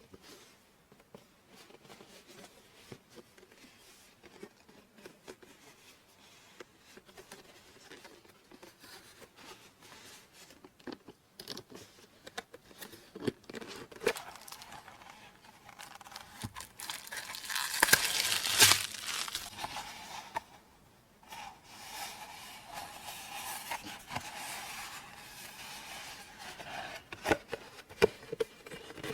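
Hands unpacking a stationery parcel: quiet handling at first, then tearing and crinkling of the packaging, loudest a little past halfway and again in the last third.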